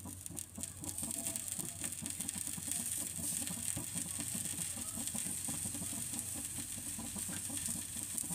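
Eggplant slices sizzling in oil on a hot iron tawa as they are laid down one after another, a steady high hiss that grows a little louder about a second in. A low, irregular chatter of short sounds runs underneath.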